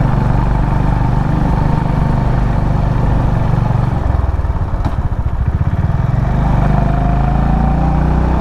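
Honda CB350RS's single-cylinder engine running steadily as the motorcycle is ridden, its firing pulses more distinct around the middle.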